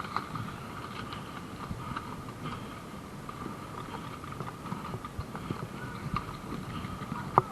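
Irregular light knocks and clicks of a person moving about with gear and handling it, with one sharper click near the end.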